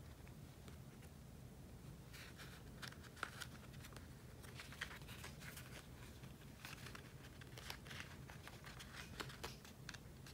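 Faint crinkling and rustling of foil-covered fabric pinwheel flaps being handled and pushed onto an upholstery tack, with scattered light ticks.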